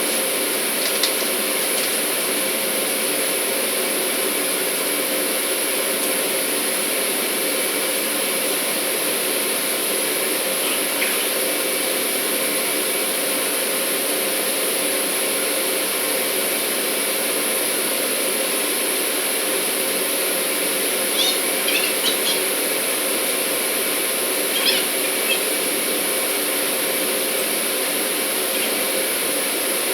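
Steady drone of industrial machinery with a few fixed whining tones, and a few faint light clicks now and then.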